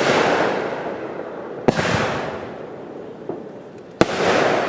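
Aerial fireworks bursting overhead: a sharp bang about every two seconds, two of them here, each followed by a second or so of crackling hiss that fades away.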